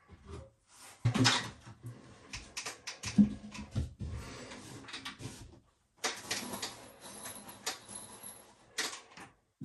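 Handling noise from a length of planed 2x1 timber being lifted and pressed up against the ceiling: irregular knocks, scrapes and rustling, with a short pause partway through.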